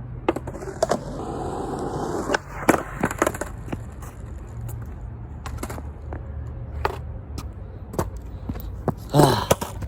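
Skateboard wheels rolling on concrete, then a string of sharp clacks as the deck and wheels strike the ground during trick attempts, several coming close together about two to three seconds in and single knocks later on.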